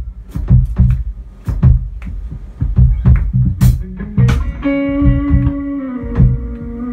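Live band with electric guitar and bass guitar over steady drum hits. About two-thirds through, held notes ring out and step down in pitch.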